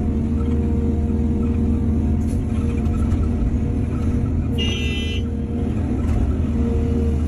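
Excavator's diesel engine running steadily, with a short high-pitched tone about five seconds in.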